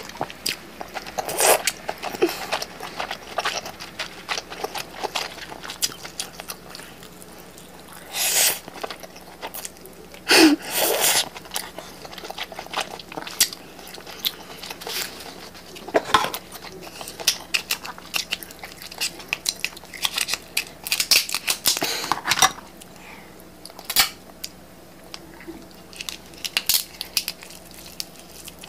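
Close-miked eating: wet chewing and smacking on sauce-dipped crab meat, a busy run of sharp mouth clicks with a few longer, louder wet bursts about a third of the way in.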